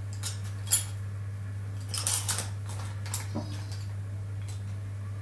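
Graphite pencil sketching on a sheet of paper: a few short, scratchy strokes, a cluster of them around two seconds in, over a steady low hum.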